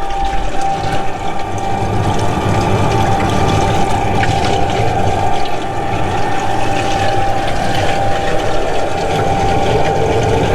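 Electric pump running steadily, circulating fluid through the freshly repaired cooler lines for a leak check: a constant whine over the rush of the flowing liquid.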